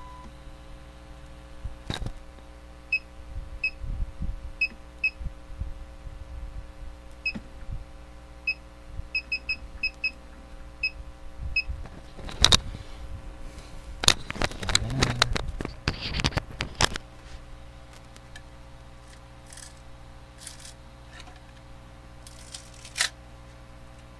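Steady hum of a home-built 3D printer at rest after finishing a print, its fans and power supply still running. A scatter of short high beeps comes through in the first half, then a burst of clicks and knocks around the middle.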